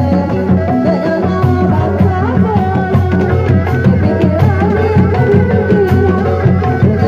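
Sundanese dog-dog street music: a woman sings a melody through a microphone and amplifier over a steady drum rhythm.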